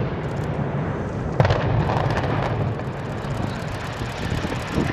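Controlled-demolition explosive charges going off in a concrete tower block: one sharp bang about a second and a half in, over a continuous low rumble as the building comes down.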